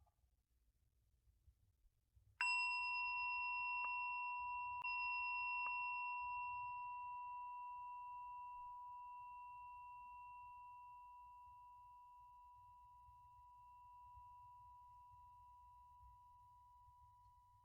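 A meditation bell or singing bowl struck once about two seconds in, then ringing with a long, clear tone that fades slowly.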